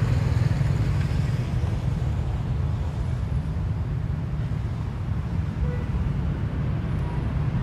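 Steady low rumble of road traffic, with motorbikes and cars passing on the road.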